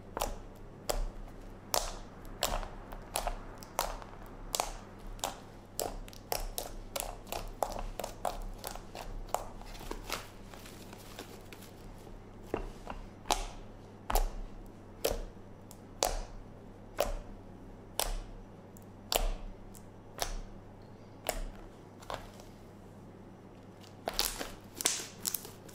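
Sticky, under-activated pink glue slime squeezed and kneaded by hand, making a string of wet clicks and pops about one or two a second, with a short pause near the end.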